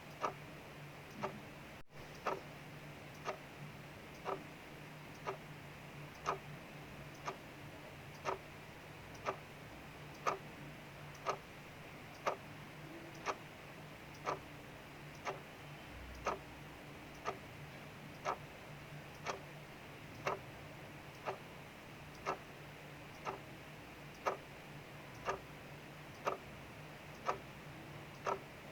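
Clock ticking steadily, about one tick a second, the ticks alternating louder and softer, over the steady hiss of falling rain.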